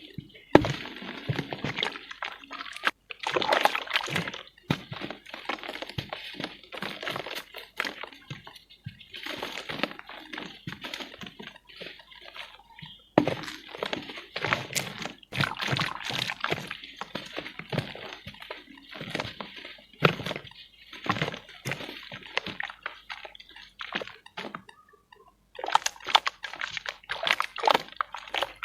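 Pure cement being crumbled wet: dense, irregular crunching and crackling mixed with sloshing and splashing, with a short pause near the end.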